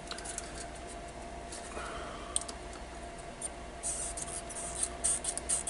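Light scratching and a few sharp clicks of hand tools working a component loose from a circuit board, with a quick run of scratches near the end. A faint steady hum runs underneath.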